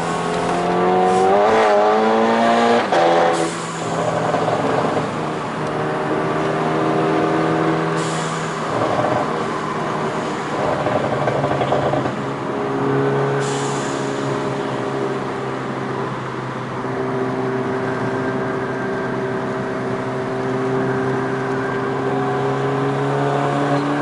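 Seat Ibiza Cupra's tuned 1.4 TSI four-cylinder engine running under way. The revs climb quickly about a second in and drop sharply with a gear change near three seconds. The engine then holds a fairly steady note, stepping down in pitch about halfway through, with a few short sharp exhaust cracks.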